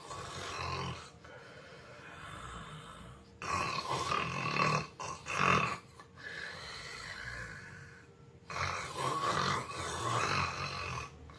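A person snoring loudly in a few long, rough snores, with quieter breathing between them.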